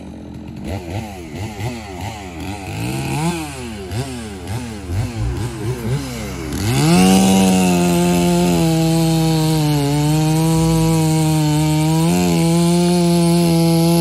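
Two-stroke chainsaw revved up and down in quick bursts, then held at full throttle cutting into a felled pine log. The pitch sags slightly twice as the saw loads in the cut.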